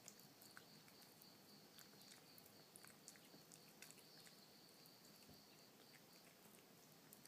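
Faint, irregular small wet clicks of a kitten licking and chewing a lump of canned cat food.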